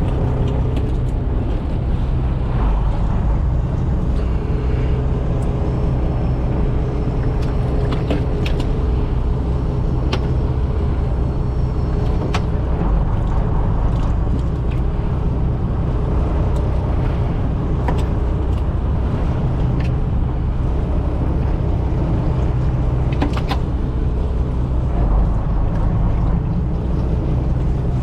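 An engine running steadily under way, a constant low drone with a few faint clicks over it.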